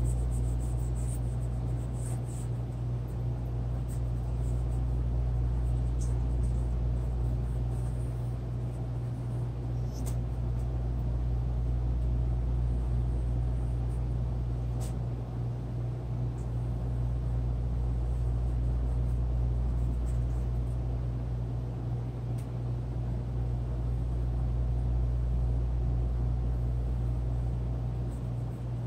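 A steady low hum, with a few faint ticks over it.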